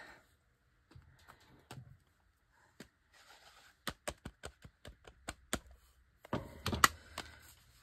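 A rubber stamp is dabbed on an ink pad in a quick run of about eight light taps, then pressed onto the journal page with a louder knock.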